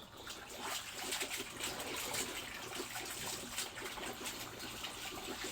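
Laundry being rinsed by hand in a basin of water: water splashing and trickling as the wet clothes are worked and lifted.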